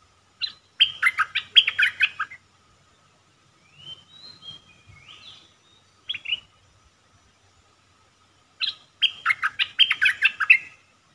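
Caged decoy bulbul singing: two loud bursts of rapid, jumbled song notes, one near the start and one near the end, with softer rising whistled notes between them.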